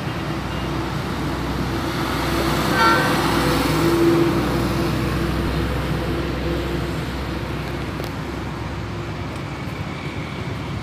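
Road traffic with motorbike engines idling and running, a steady low hum that grows louder about three to four seconds in.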